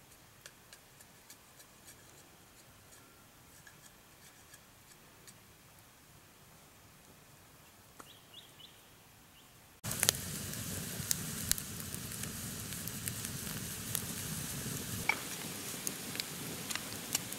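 Faint scattered ticks, then about ten seconds in an abrupt jump to a steady sizzling hiss full of sharp crackles: cooking over a campfire.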